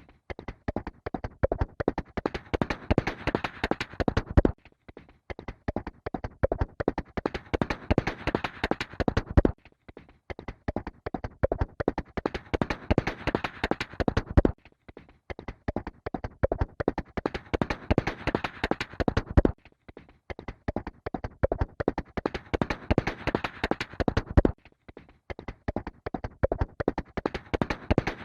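Horse galloping, a rapid run of hoofbeats. It cuts off sharply and starts over about every five seconds, a short recording looped.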